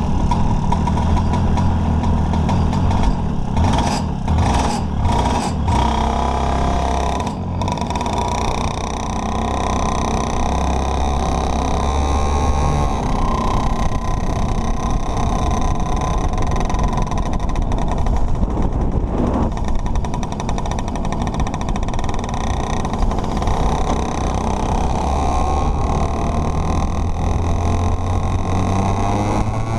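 Go-kart engine running as the kart pulls away and laps the track, heard close up from a camera mounted on the kart. A few sharp knocks come early in the first seconds, and near the end the engine note rises as it accelerates.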